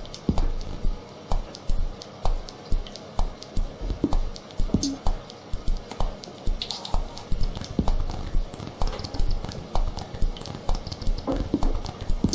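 Music with a steady beat of about two beats a second, with sharp clicks throughout.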